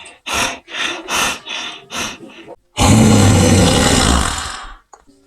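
A person's voice imitating a Triceratops: a quick run of about seven short, rough calls, then about three seconds in one long, raspy call lasting about two seconds that fades away.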